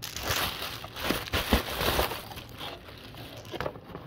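Plastic bubble mailer crinkling and rustling as it is opened and handled, loudest in the first two seconds and softer after, with a few small knocks.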